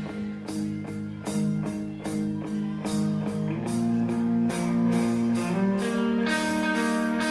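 Instrumental guitar music with no singing: plucked notes in a steady rhythm, moving into longer held notes about halfway through.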